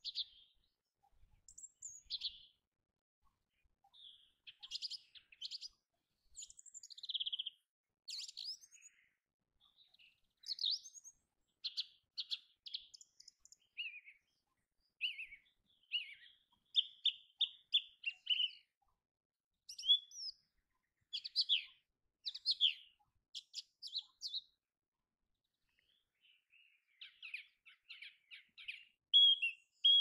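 Small songbirds chirping and calling in short, high phrases with pauses between, several calls overlapping; a quick run of repeated notes near the end is the loudest.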